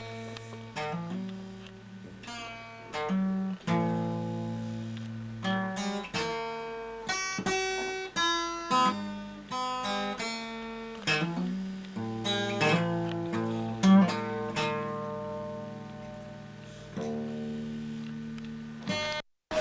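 Instrumental music: guitar-like plucked and strummed notes over held bass notes. It cuts off abruptly near the end.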